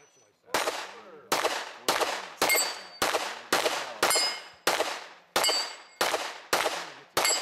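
Pistol-caliber carbine firing a steady string of about a dozen shots, nearly two a second. Several shots are followed by the ring of steel targets being hit.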